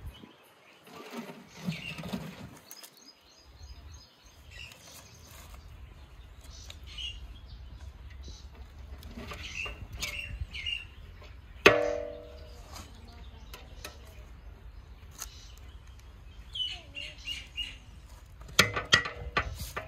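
Small birds chirping on and off, with a sharp clank that rings briefly about halfway through and a quick run of clanks near the end: a long slotted metal skimmer knocking against a large aluminium cooking pot.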